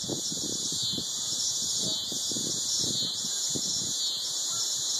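Steady high-pitched insect chorus droning from the summer trees, a dense shrill hiss with a fine pulsing texture that does not let up.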